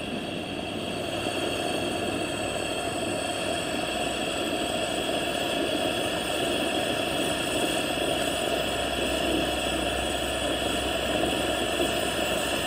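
Steady rushing of a hose-fed gas camp stove burner under a stainless pot, with the water and cracked coffee beans coming up to a hard rolling boil. It grows a little louder early on, then holds steady.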